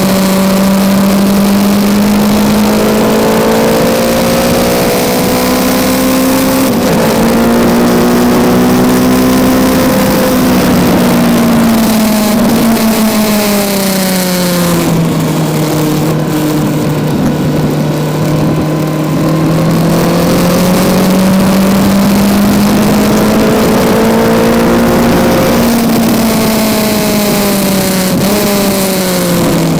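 Kawasaki Z900's inline-four engine heard onboard at track pace: it climbs in pitch under hard acceleration with quick dips at the upshifts, falls away as the bike brakes and downshifts into a corner, holds low through the turn, then rises again on the exit before stepping down once more near the end. A steady hiss runs behind the engine throughout.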